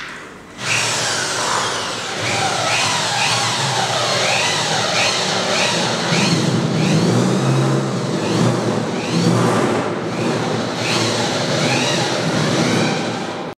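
Electric power drill running under load, a loud continuous motor whine with a repeated rising sweep in pitch.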